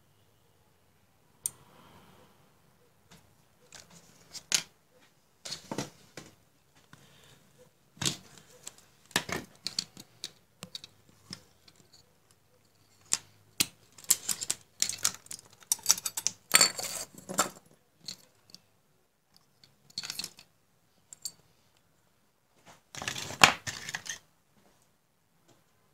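Hands handling small electronic parts and wires on a hard tabletop: irregular clicks, taps and short scrapes, busiest past the middle and again near the end.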